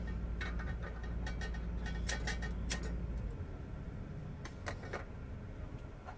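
Run of small sharp metal clicks and taps as a stainless pot is settled on a single-burner propane camp stove and the burner is worked, with two sharper clicks near the end as it is lit. A low steady hum underneath stops about three seconds in.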